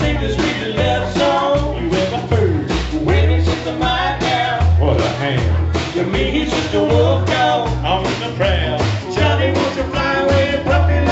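Live country band playing an instrumental passage: bass notes and regular drum hits under a lead line with sliding notes.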